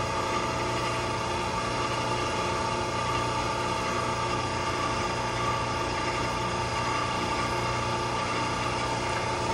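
Steady machinery hum with several steady tones from HVAC equipment at an air-cooled chiller that is idling while it waits for load, its compressors not yet running.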